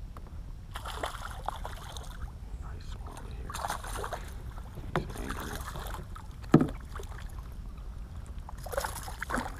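Hooked smallmouth bass splashing at the water's surface in repeated short bursts while being fought toward the kayak, with one sharp, louder knock past the middle.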